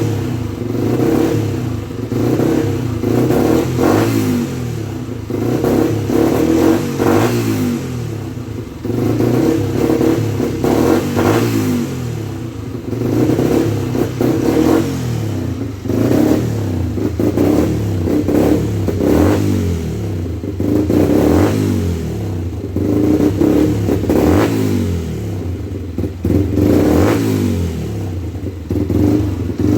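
Rebuilt Yamaha 125 cc motorcycle engine running and being revved over and over, its pitch and loudness rising and falling about every two seconds.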